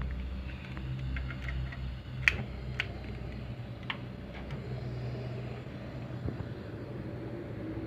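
Gas burner running with a steady low rumble under a steel pot of water, with a few sharp clicks or knocks about two to four seconds in.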